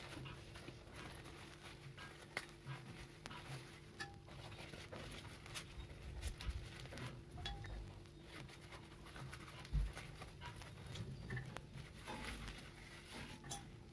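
Large taro leaves rustling and crinkling as they are lifted and folded by hand over a steel bowl, a patter of small clicks and crackles. A soft low thump comes about ten seconds in, over a faint steady hum.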